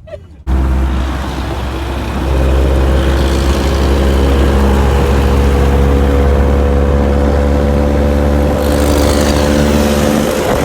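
A vehicle engine running steadily on the move, with a heavy low rumble and a steady drone. It cuts in abruptly about half a second in.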